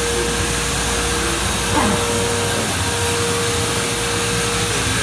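Steady machine noise in a guitar workshop: an even whoosh with a constant mid-pitched hum, with a short voice sound about two seconds in.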